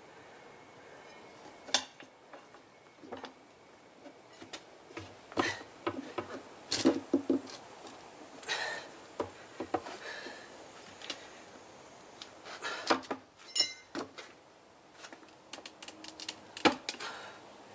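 Metal tools clinking, knocking and scraping against a motorcycle wheel rim as a tyre is fitted by hand, in irregular sharp strikes with a short rattling run of ticks in the middle.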